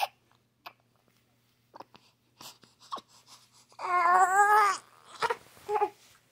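One-month-old baby fussing: a loud, wavering cry lasting about a second, starting about four seconds in, followed by two brief whimpers, with a few small mouth clicks before it.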